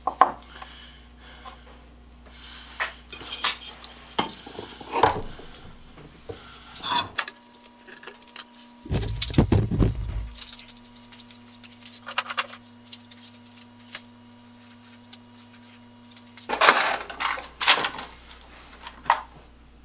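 Scattered knocks and metallic clinks of tools being handled on a steel-topped workbench, with a busier clatter near the end as steel drill bits are picked through in a metal drill index.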